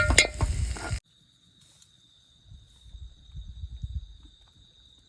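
Sausage chili fry sizzling in a pan, with stirring clicks against the pan, for about a second. Then it cuts off abruptly to a steady high insect trill, like crickets, over a faint low rumble.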